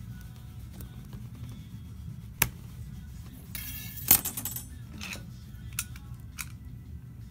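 Metal hand tools being handled on a glass counter: one sharp click, then a cluster of metallic clinks and jangling about four seconds in, and a few lighter clicks after.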